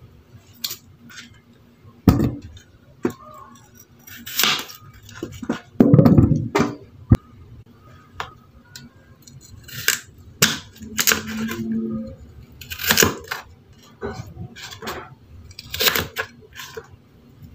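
Large kitchen knife cutting potato and carrot on a plastic cutting board: irregular knocks and crunches of the blade through the vegetable onto the board, every second or two.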